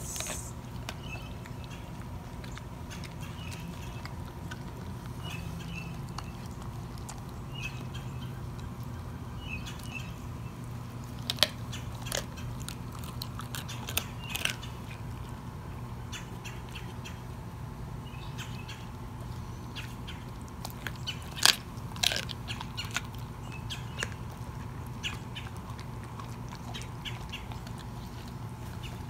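Dog chewing a raw chicken leg quarter: wet gnawing with scattered sharp cracks and crunches of bone, the loudest a few cracks about halfway through and one about two-thirds of the way in.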